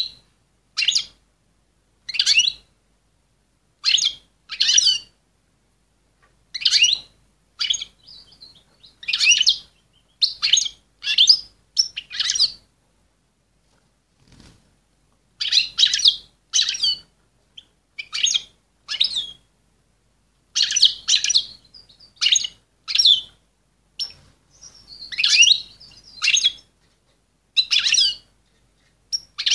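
Female European goldfinch in breeding condition calling: short, high twittering calls repeated about once a second, with a pause of a couple of seconds near the middle.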